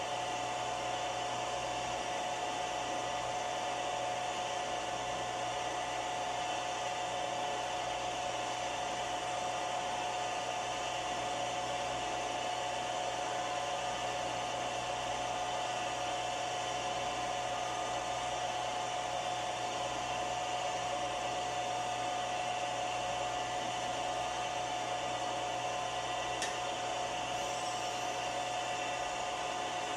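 Milling machine running steadily while drilling a small hole in a pin: an even motor whir with a constant whine. A single short click comes near the end.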